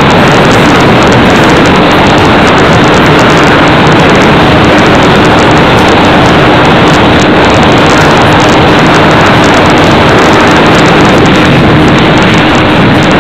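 Loud, steady wind and road noise, as heard from inside a moving vehicle, with a faint steady hum underneath from about two seconds in.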